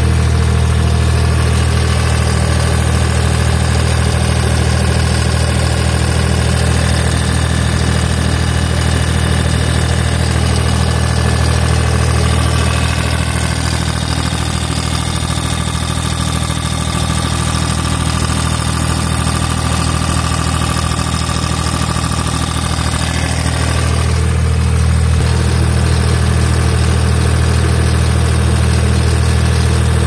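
Deutz turbo-diesel engine of a 2004 Gehl 4640 skid steer loader idling steadily, heard up close from inside the open engine compartment.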